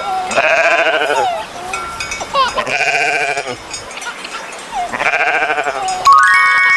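Sheep bleating three times, each call a long, wavering baa. Near the end comes a short run of bright, chime-like tones.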